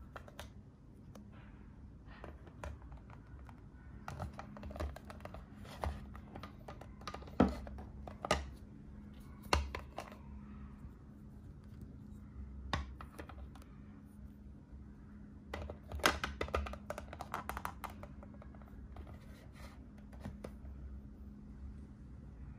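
Clicks and taps of small plastic figure parts being handled and fitted together, the head pressed onto the body and the figure onto its plastic base, with a few sharper knocks. A steady low hum runs underneath.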